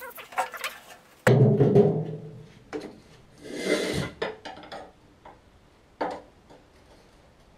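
Tools and metal parts being handled while working on a lawnmower: a few light knocks, then a heavy clunk with a ringing tail about a second in, a brief scraping rush around four seconds in, and a sharp knock a couple of seconds later.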